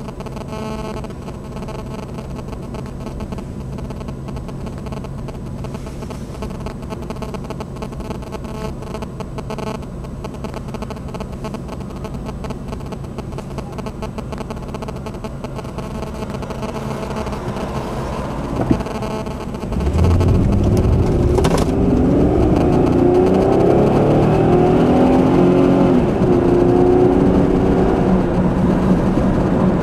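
A car engine and road noise run as a steady drone. About two-thirds of the way in the sound turns abruptly louder and the engine pitch wavers, with one sharp click shortly after.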